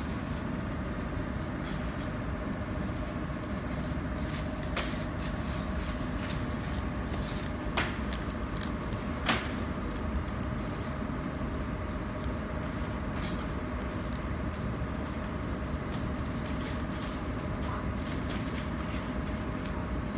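Steady low machine hum, with a few sharp knocks about five, eight and nine seconds in as steel PDC drill bits are handled and set down.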